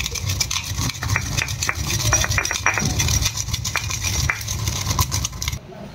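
Dry-roasted spices, cumin and fenugreek among them, being ground in a stone mortar: irregular knocks and gritty clicks of the pestle over a low grinding rumble, stopping abruptly near the end.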